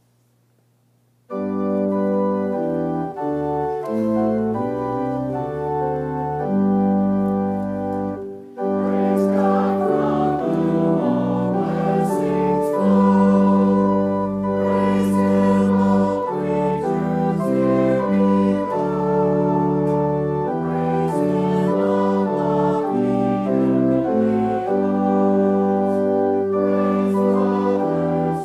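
Organ playing held chords, starting about a second in after near silence, with a brief break just past the eight-second mark.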